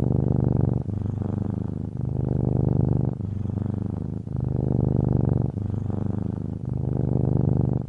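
Domestic cat purring close up: a steady, rapid low rumble in alternating louder and softer stretches of about a second each, with a brief break between them.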